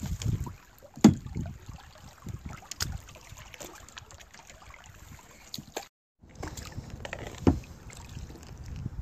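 Kayak being paddled, with water sloshing and several sharp knocks, the loudest about a second in and near the end, over a low rumble of wind on the microphone. The sound drops out for a moment about six seconds in.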